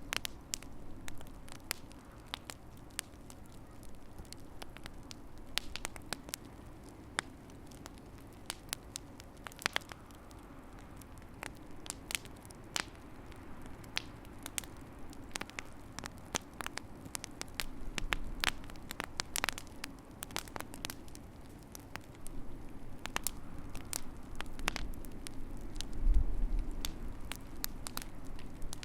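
Wood fire crackling, with irregular sharp pops and snaps over a steady low rumble of the flames. The rumble swells twice, most strongly near the end.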